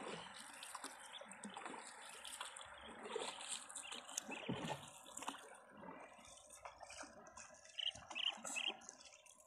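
Faint water sounds of a wooden dugout canoe being paddled: a paddle dipping and small splashes and trickles of water around the hull.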